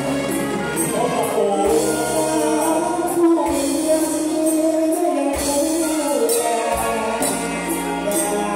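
A male vocalist sings a Thai song into a microphone, backed by a live band with drums and keyboard, over a steady beat of high ticks.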